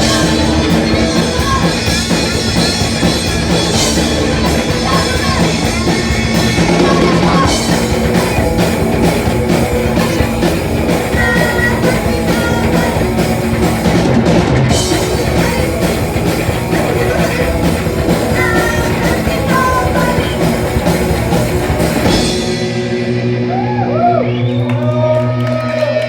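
A live punk rock band playing loud: electric guitar, drum kit and singing. About 22 seconds in, the drums drop out and a guitar carries on alone.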